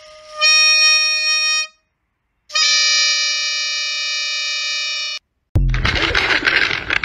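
Plastic football fan horn held to a golden retriever's nose, sounded by the dog's breath: two steady honking notes, the first about a second and a half long, the second nearly three seconds. Near the end a crinkly rustling of a plastic treat bag takes over.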